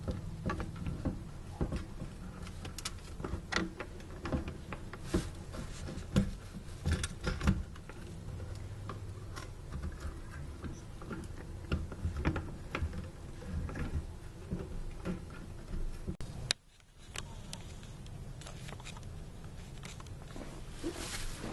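Scattered clicks, taps and light knocks of hand-handled parts as a new fuel pump assembly is seated in the fuel tank opening, over a steady low hum. The sound briefly drops out about three-quarters of the way through.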